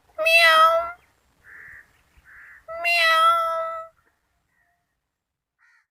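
Kitten meowing twice, two high-pitched drawn-out meows about two and a half seconds apart, with two faint short noises between them.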